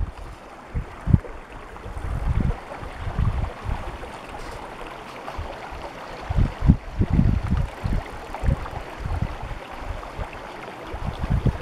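Running river water, a steady rushing noise, with irregular low rumbling gusts of wind on the microphone.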